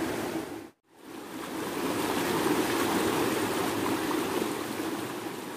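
Shallow muddy river rushing over rocks in rapids, a steady rush of water. It cuts out for a moment a little under a second in, returns, and fades near the end.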